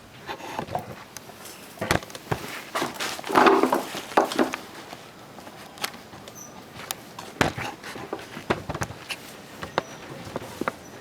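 Irregular metallic clicks, taps and knocks with some rustling, as of hand tools and small metal parts being handled during scooter drivetrain work, busiest a couple of seconds in.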